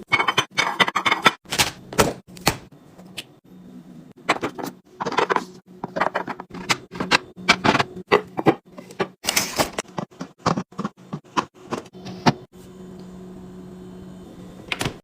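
Food containers, jars and bottles being handled and set down while a refrigerator is restocked: irregular clicks and knocks over a steady low hum. The knocks pause for about two seconds near the end.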